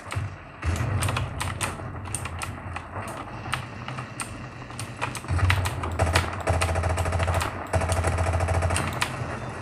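Keys clattering on a gaming keyboard, with mouse clicks, during fast play of a first-person shooter. Under the clicks the game's sound runs as a deep rumble that swells in long stretches about halfway through and again near the end.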